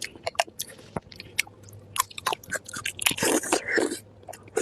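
Close-miked eating: a person chewing and biting food, with many sharp, irregular wet clicks and smacks. About three seconds in comes a longer crunchy stretch.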